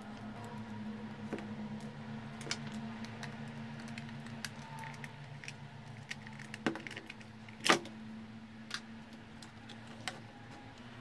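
Small clicks and taps of a screwdriver and the plastic housing of a Nikon SB-800 flash as its case is unscrewed and pried open, with one much louder snap about three-quarters of the way through. A steady low hum runs underneath.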